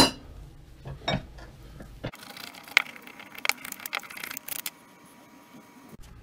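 Metal hand tools and vise parts clinking and knocking as they are handled: a sharp knock at the start, another about a second in, then a run of lighter clicks midway.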